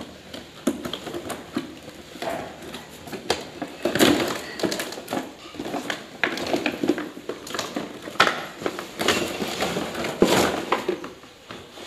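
Clear plastic packaging crinkling and crackling, with cardboard box flaps rustling and scraping, as an RC truck is pulled out of its box by hand. Louder crunches come about four seconds in and again near the end.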